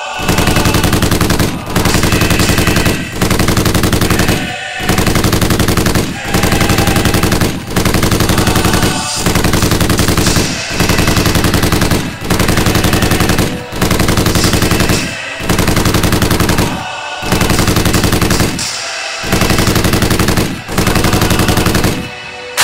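Rapid machine-gun fire, a dubbed-in sound effect, in about fourteen even bursts of roughly a second and a half, each cut by a short break.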